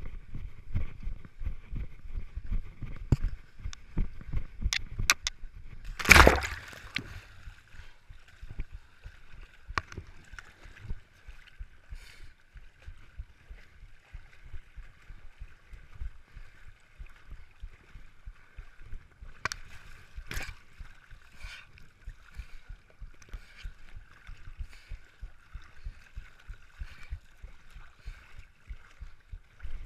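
Runners wading through a muddy stream, water sloshing and splashing irregularly around their legs with each stride. One loud burst about six seconds in.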